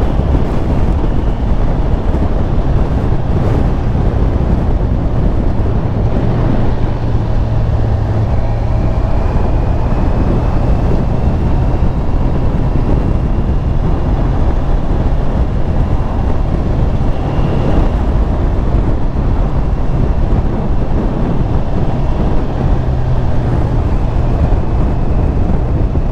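Honda CBR650R's inline-four engine running steadily at road speed, under heavy wind rush on the microphone.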